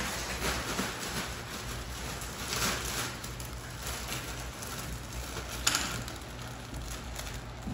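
Metallized foil balloon film crinkling and rustling as it is handled, with a few sharper crackles, the loudest just before six seconds in.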